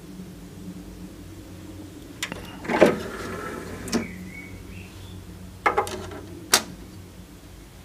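CD player's motorised disc tray sliding open, a short motor whine ending in a clunk as the tray stops, then a few light clicks as a disc is set down on the tray. A low steady hum underneath.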